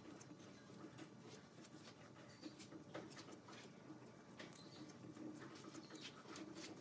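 Near silence with faint scratches and scattered light clicks of a brush spreading liquid over a wooden block, over a faint steady room hum.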